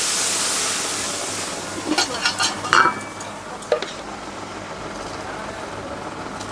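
A loud hiss that fades away over the first second or two, then a few sharp clicks and a short squeak from a polystyrene clamshell food box being handled, over a steady kitchen background.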